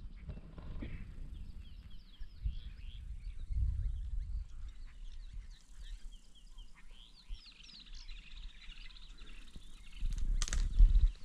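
Birds chirping in many quick, short calls over a low rumble, with a brief louder rush of noise near the end.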